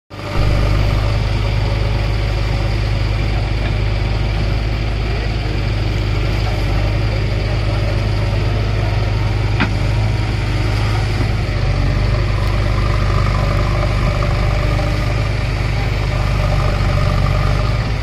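JCB 3DX backhoe loader's diesel engine running steadily with a deep, constant drone as the machine works its backhoe arm in mud. A single sharp knock comes about halfway through.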